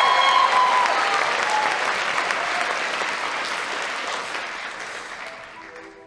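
Audience applauding, loudest at the start and dying away gradually over several seconds. The last held notes of the choir's song fade out about half a second in, and soft mallet-percussion notes begin near the end.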